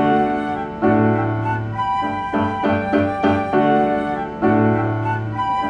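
Instrumental background music: short repeated chords in a steady rhythm, with longer held notes about a second in and again near the end.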